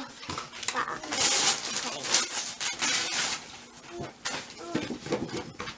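Wrapping paper rustling and tearing for a couple of seconds, with children's voices around it.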